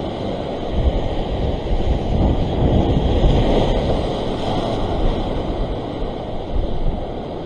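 Surf breaking and washing over sea rocks, with wind buffeting the microphone as a low rumble; the wash swells louder a couple of seconds in and then eases.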